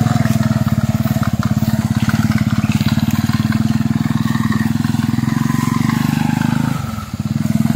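Small motorcycle engine running steadily under way. It eases off briefly about seven seconds in, then picks up again.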